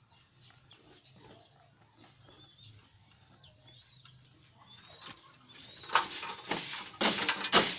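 Stick broom of thin coconut-leaf ribs sweeping a dirt-and-straw pigeon-loft floor in brisk swishing strokes, about two a second, starting about five and a half seconds in. Before that, only faint short bird chirps.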